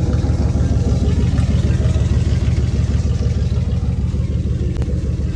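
The 5.9-litre engine of a 1997 Ram 2500 running steadily, with a knock from the lower end that the owner takes for rod knock.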